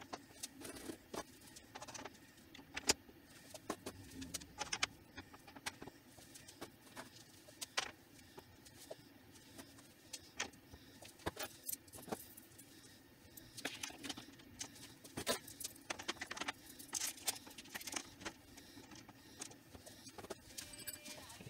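Sewing tools and their hooks clicking and rattling against a pegboard as rotary cutters are hung up, in irregular sharp clicks and light clatters.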